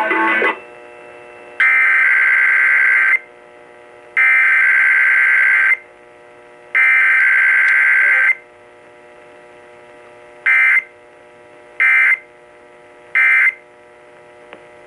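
Emergency Alert System data tones for a Required Weekly Test: three long, shrill warbling data bursts (the SAME header sent three times), then three short ones (the end-of-message code). A faint steady tone runs underneath.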